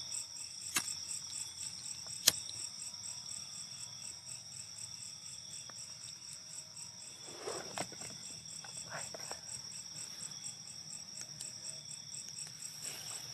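Night insects, cricket-like, trilling steadily at a high pitch, with two sharp clicks in the first few seconds.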